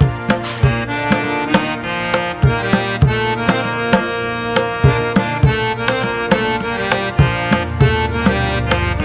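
Background music: a rhythm of hand-drum strikes with deep thumps under a sustained melody of held, pitched notes.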